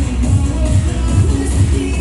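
Dance music played loud through a nightclub sound system during a DJ set, driven by a heavy, steady bass beat.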